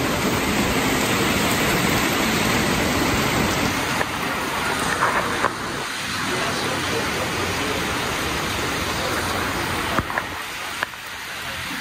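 Steady rain falling, an even hiss, with a few light clicks of handling about four to five seconds in and again about ten seconds in.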